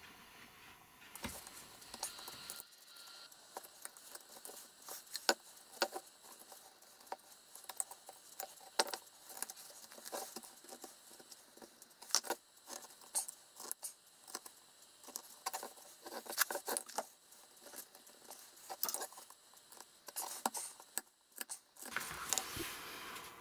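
Knife carving a notch into a wooden buck-saw arm by hand: irregular short scraping cuts and clicks, several a second, with brief pauses.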